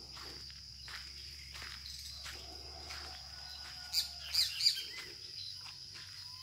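A steady high-pitched insect drone with footsteps on a dirt track about every two-thirds of a second. A quick burst of bird chirps about four seconds in is the loudest sound.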